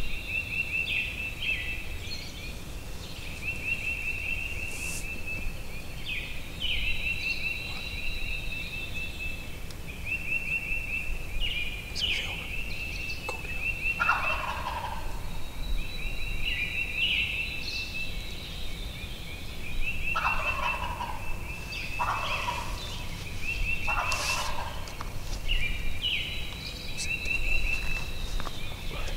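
Wild turkey gobbler gobbling: one gobble about halfway through, then three more in quick succession near the end. A high, fast trill repeats in short phrases behind it.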